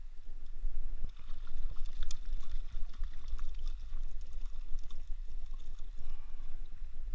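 Water sloshing and splashing as a hooked fish thrashes at the surface close to a wading angler, with scattered small ticks, over a steady low rumble on the microphone.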